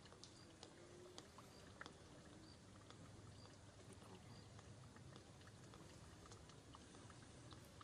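Near silence: faint outdoor background hiss with scattered tiny clicks and a few brief, very faint high chirps.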